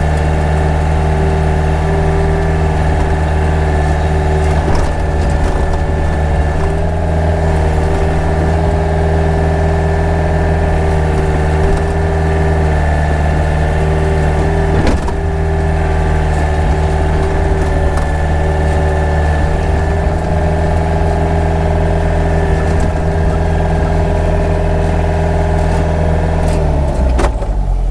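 Hyundai mini excavator's diesel engine running steadily under throttle while the bucket digs into a dirt bank, with an occasional knock. Near the end the engine throttles down and its pitch drops.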